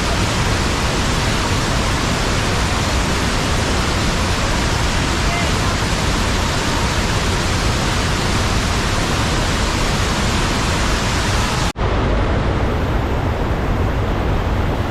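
Loud, steady rushing noise with no clear pitch or rhythm. It breaks off for an instant about twelve seconds in and resumes sounding duller.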